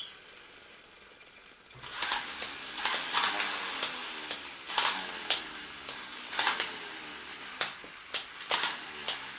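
Hand-made foley sound effect: a crackling, sizzling hiss with irregular sharp clicks. It starts about two seconds in after a quiet hiss.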